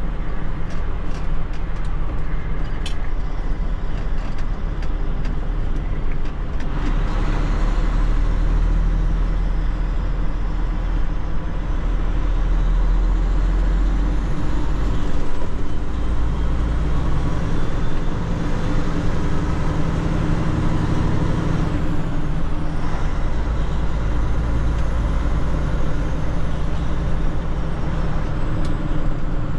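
Tractor-trailer tanker truck's diesel engine and road noise heard inside the cab while driving: a steady drone whose engine note changes a few times.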